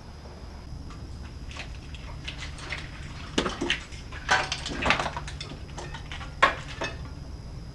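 Irregular metallic clinks and clanks of metal parts or tools knocking together, with a sharp loudest clank about six and a half seconds in, over a low steady hum.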